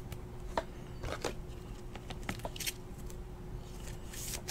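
Faint scraping and light clicks of a sports trading card being handled and slid into a rigid clear plastic top loader.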